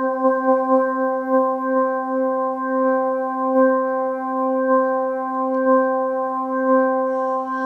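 A held electronic organ note played through a Motion Sound Pro 145 rotary speaker as its spinning horn and lower drum slow from fast (tremolo) to slow (chorale) speed. The throbbing wobble in the sustained note slows down to about one swell a second.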